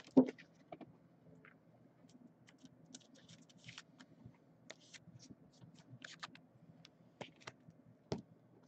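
Quiet handling of a trading card in a plastic penny sleeve and rigid top loader: scattered light clicks and rustles, with a louder click just after the start and another near the end.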